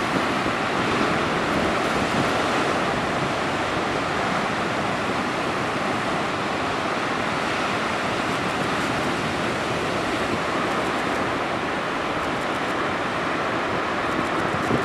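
Atlantic Ocean surf: waves washing ashore, heard as a steady, even rushing noise.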